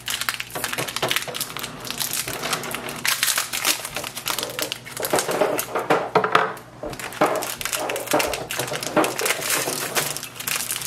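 Plastic packaging of ink cartridges crinkling and crackling as it is torn open and handled by hand.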